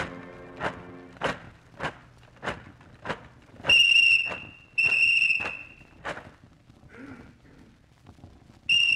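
Radio-play sound effects: slow, even footsteps, about three steps every two seconds, then a whistle blown in two long blasts. A third blast comes near the end.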